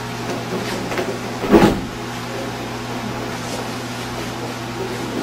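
A single dull thud of a body landing on a padded dojo mat about one and a half seconds in, with a few faint knocks around it, over a steady low hum.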